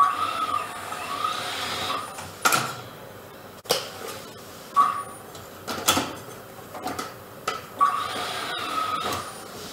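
A tire changing machine in use while a tire is worked off and onto an alloy rim: sharp clanks and knocks of tire, rim and tools against the machine, with a stretch of steady whirring machine noise at the start and again near the end.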